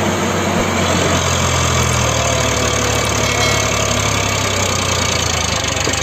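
Eicher 551 tractor's three-cylinder diesel engine running steadily under load as the tractor, stuck in deep paddy-field mud, crawls forward on its cage wheels.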